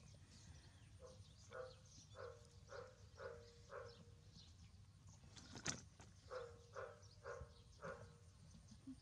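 Faint animal calls: a run of about six short calls, then a pause, then a run of four more, about two a second. A single sharp click falls between the two runs.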